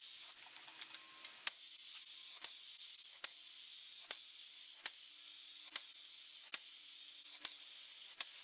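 Compressed-air spray gun hissing steadily as it sprays a coat of sealer onto a bare wood table top. The hiss stops for about a second near the start, then resumes.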